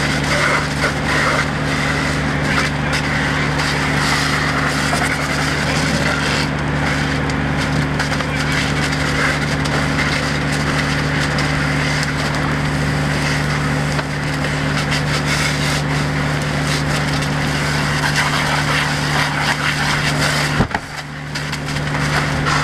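A burning travel trailer crackling and popping steadily, over the constant low hum of an engine running, most likely the fire engine's pump.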